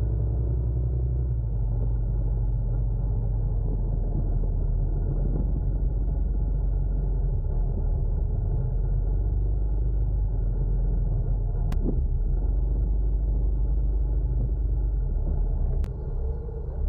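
Motorcycle running at a steady riding pace, its engine hum buried in low wind rumble on the microphone. Two short clicks come in the second half, and the level dips briefly near the end.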